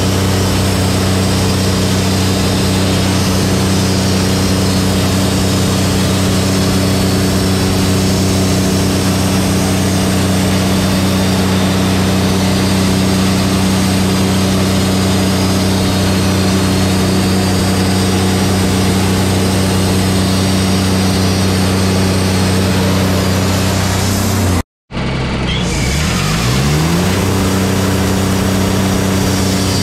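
Wood-Mizer LT35 hydraulic sawmill running steadily, its band blade sawing through an eastern red cedar log. Near the end the sound cuts out for a moment, then the engine comes back with its pitch rising as it speeds up.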